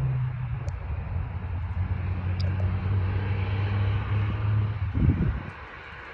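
Steady jet aircraft engine noise with a low hum, loudest for the first five seconds; a brief louder bump comes about five seconds in, and then the sound falls away quieter.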